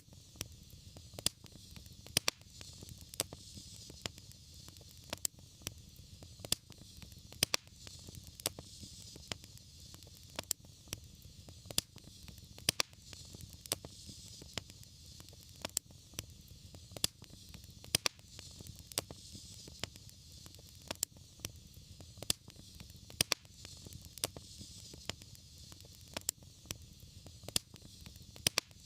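Wood fire crackling in a fireplace: sharp pops and snaps several times a second over a steady hiss and a low rumble.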